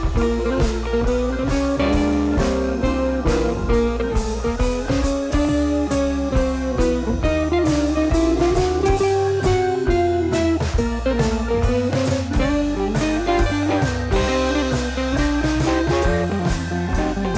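Background music: a guitar melody over drums and bass, with a steady beat.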